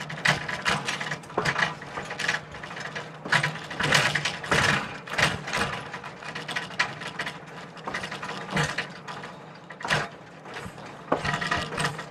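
Train rolling along the track: a dense, irregular string of metallic clacks and rattles from the wheels and running gear over a faint low hum.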